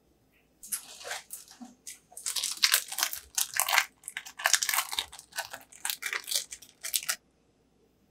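Plastic wrapper of a cheese slice crinkling as it is peeled off, a run of quick irregular rustles starting about a second in and stopping shortly before the end.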